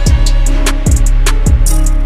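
Background music with a steady, heavy drum beat and pitched instruments.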